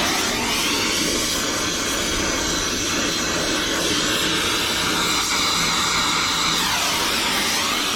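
Brazing torch flame running steadily on copper refrigerant line joints, a constant hiss whose tone slowly sweeps up and down as the torch moves.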